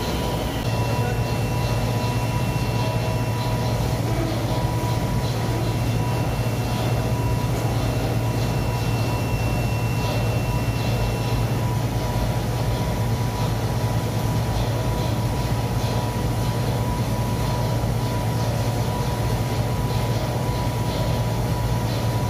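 Industrial glove-washing machinery running: a steady low hum with a constant high tone over it, and a thinner, higher whine that comes and goes twice in the first half.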